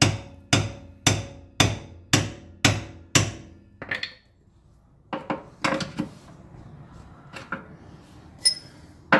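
Hammer blows on the steel underbody of a car, about two a second, each ringing briefly. After seven strikes they stop, and a few scattered metal clanks and a light clink of tools follow.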